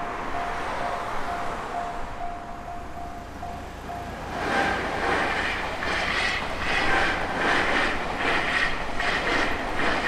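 Japanese railway crossing alarm ringing its repeating electronic tone, about two rings a second, because a tram is approaching the crossing. From about four seconds in, a louder, rhythmic, noisier pulsing sound covers the tone.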